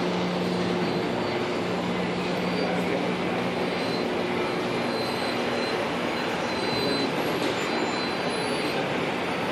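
Steady whirring machine noise of a running reflow oven and its board conveyor on a surface-mount PCB production line, with a low hum that fades about halfway through.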